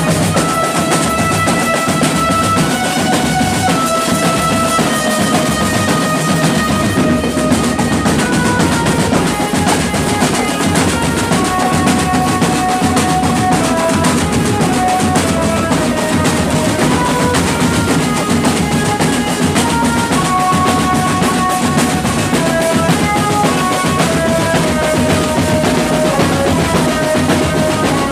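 Marching drum band playing: snare and tenor drums with cymbals keep a steady beat with drum rolls, under a melody of held notes that step up and down.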